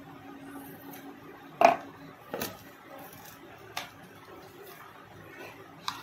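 Cardboard smartphone box being opened and handled by hand: a sharp knock about one and a half seconds in, another soon after, then a couple of lighter clicks and cardboard rustles.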